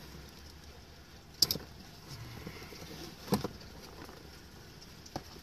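Hands working a storage bag's nylon strap and buckle hardware around the seatbelt mount and roll bar: a sharp click about one and a half seconds in, a double knock a little past the middle, and a small click near the end, over a low steady hum.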